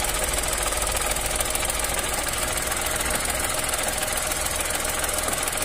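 Chevrolet Onix three-cylinder engine idling steadily with the clutch not yet pressed, with a steady mechanical noise from the gearbox area. The noise appeared after an aftermarket Helper clutch was fitted and was gone once the original clutch went back in.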